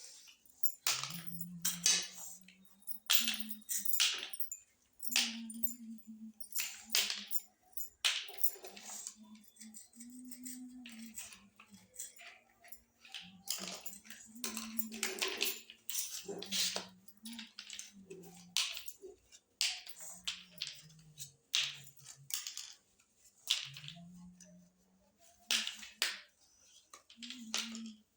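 Small plastic toy kitchen pieces being handled, with many sharp clicks and taps throughout as parts are set down and fitted together.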